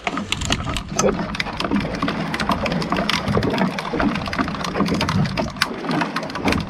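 Water slapping and spattering against the side of the boat, a dense patter of small splashes and ticks with a low rumble beneath.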